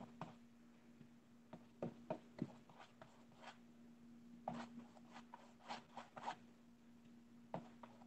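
Faint scratchy strokes of a wide flat paintbrush working black acrylic paint onto a stretched canvas, in two short clusters, over a faint steady hum.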